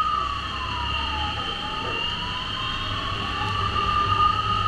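Ambulance siren wailing, its pitch falling slowly and climbing back once, over the low rumble of a motorcycle riding in traffic.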